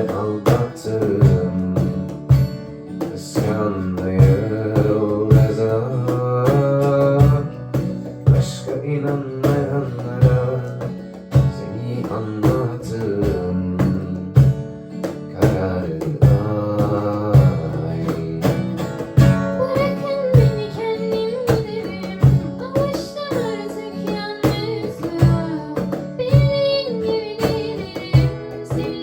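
Band music: acoustic guitar chords over a steady cajón beat, with a wavering melody line that rises higher about two-thirds of the way through.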